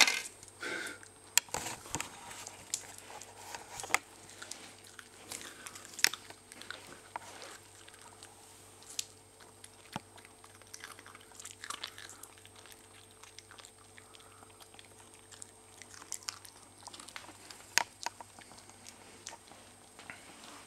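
Six-week-old cocker spaniel puppy gnawing and crunching on a raw carrot, with irregular small crunches and clicks and short quiet gaps between them.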